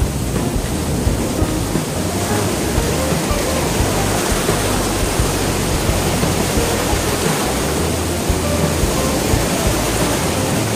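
Sea surf breaking and washing in foam over the shallows close by: a steady, loud rush of water.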